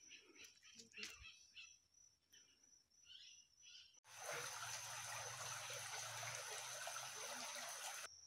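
Small rocky forest stream rushing and splashing, starting abruptly about halfway through and cutting off just before the end. Before it there are faint chirps over a steady high-pitched insect tone.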